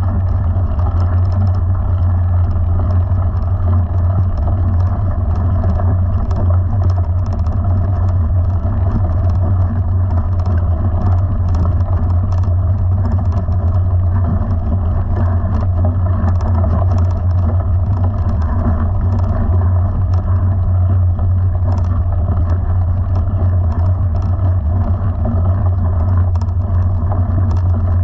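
A small motor running steadily with an even low drone, with a light crackle of tyres rolling over gravel on top.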